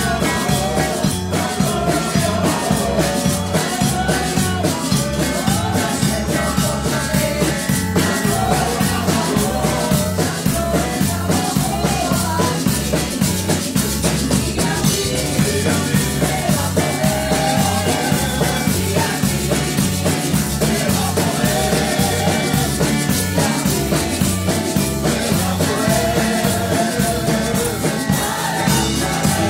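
Live amplified praise music: a woman singing the melody through a microphone over electric bass guitar and a steady drum-kit beat.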